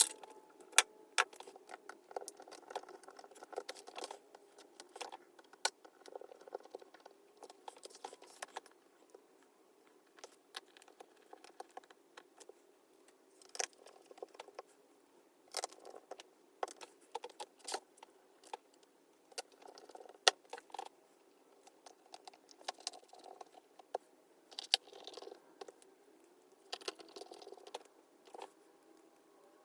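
Faint, irregular clicks and small metallic taps as the MacBook Pro's tiny pentalobe bottom-cover screws are set into their holes and turned in with a precision screwdriver.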